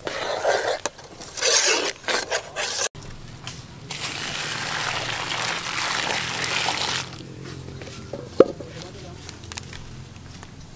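A spoon stirs and scrapes in a metal pot of sauce with irregular clatters. After a cut, a thick dark dressing is poured in a steady stream onto cucumbers in a plastic bowl for about three seconds, stopping abruptly, followed by a single sharp click.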